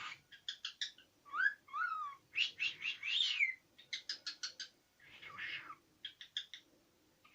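Cockatiel whistling and chirping: quick runs of short sharp chirps, several whistled notes that rise and fall in pitch, and a harsher, noisier call about five seconds in.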